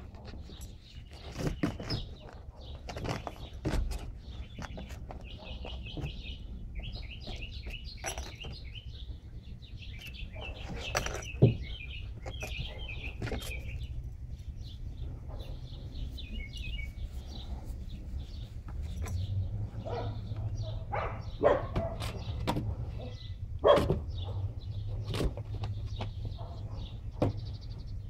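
Puppies playing: scattered knocks and scuffles, with stretches of rapid high-pitched squeaking chirps through the first half, over a low steady hum.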